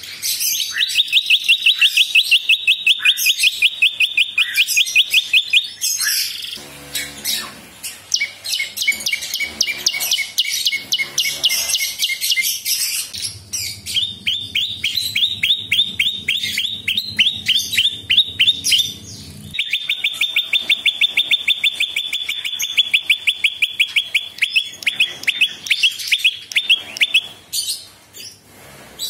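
Caged prenjak (a small tailorbird/prinia-type warbler) singing: long trilled bursts of quick, evenly repeated sharp notes, about five a second, each burst lasting several seconds with brief pauses between.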